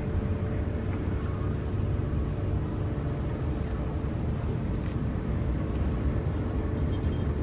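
Airbus A320 airliner's jet engines giving a steady low rumble as the aircraft climbs out after takeoff.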